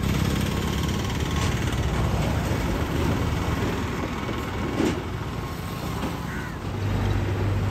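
Outdoor ambience: a steady low rumble of engines with occasional bird calls, then a steadier engine hum from road traffic setting in near the end.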